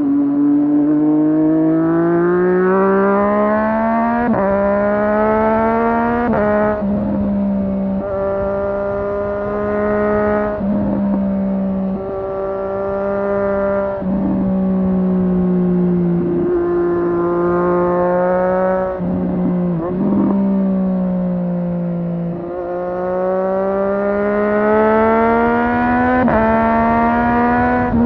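2017 Triumph Street Triple 765R's inline three-cylinder engine under way. The revs climb over the first six seconds, then the note breaks briefly every couple of seconds, and the revs climb again near the end.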